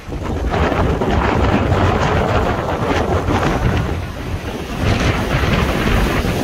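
Strong wind buffeting the microphone in loud, uneven gusts, rising suddenly at the start and easing briefly partway through.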